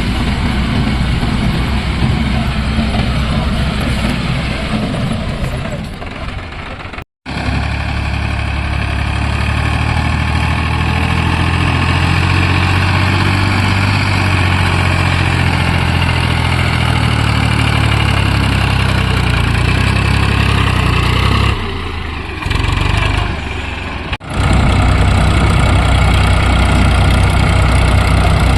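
Tractor engine running steadily, with a brief break about seven seconds in and a few seconds of lower level past the twenty-second mark.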